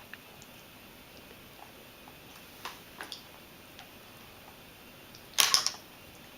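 Small clicks and ticks of someone eating rice, with a short clatter of several quick clicks about five and a half seconds in.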